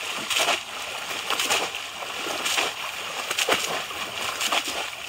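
Water splashing in repeated bursts, about one a second, as people wade through shallow water and plunge bamboo polo fish traps into it, with water pouring off each trap as it is lifted.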